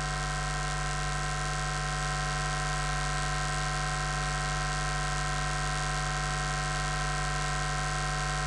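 Steady electrical hiss and hum: a constant low hum under an even hiss, with several fixed high-pitched whines on top, unchanging in level.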